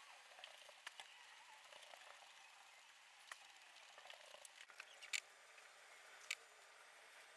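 Faint light tapping and scratching of drawing tools on paper, a scatter of small clicks with two sharper ones about five and six seconds in, over a quiet hiss.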